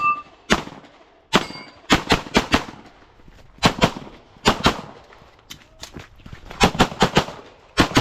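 Rapid pistol fire during a USPSA stage: many sharp shots, mostly fired in quick pairs with short pauses between groups.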